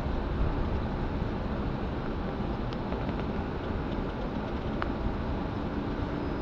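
Inside a moving city transit bus: the steady low rumble of the bus's engine and road noise, with a couple of faint clicks or rattles near the middle.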